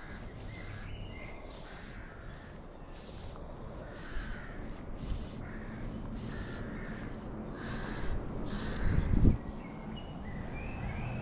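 A bird calling over and over, short calls about one every two-thirds of a second, over steady outdoor rumble. A single low thump about nine seconds in is the loudest sound.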